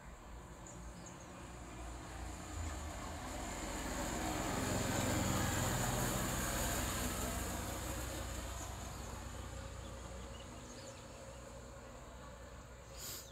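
A vehicle passing along the road, growing louder to a peak about five seconds in and then fading away.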